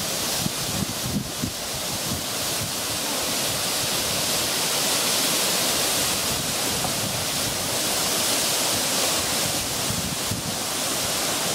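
Tall fountain jets rushing and splashing down into a pool: a steady hiss of falling water that grows a little louder over the first few seconds. Wind buffets the microphone in the first second or so.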